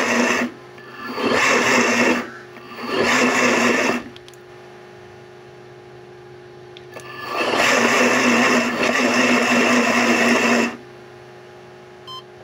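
A blender converted to run on a 12 V DC battery, its motor throttled through a servo tester, running in bursts. Three short runs of about a second each come close together, then after a pause one longer run of about three seconds, each at a steady pitch. A faint short beep comes near the end.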